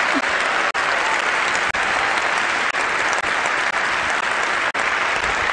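Large auditorium audience applauding steadily, a dense even clapping.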